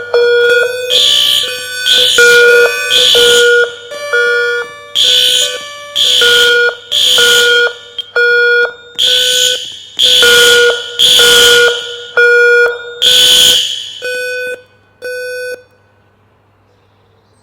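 Building fire alarm horns sounding a pulsing evacuation signal: loud buzzing blasts about a second apart in repeated groups of three, the temporal-three fire evacuation pattern. The last couple of blasts are weaker and the alarm stops near the end.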